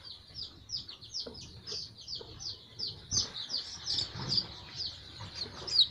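Young chicks peeping in a quick, steady run of short high peeps, each falling in pitch, about four a second.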